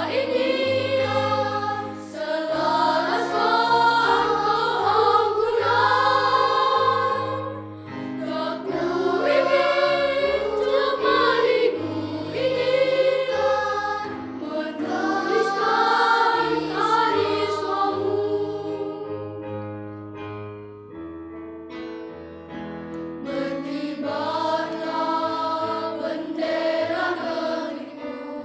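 Elementary-school children's choir singing in unison and parts over sustained low accompanying notes. The singing thins to a softer passage about two-thirds of the way through, then swells again near the end.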